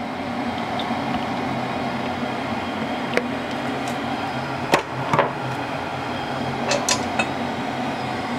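Steady hum of a running kitchen appliance under a wok being heated, with a few light knocks and clinks as the oil bottle and the wok are handled.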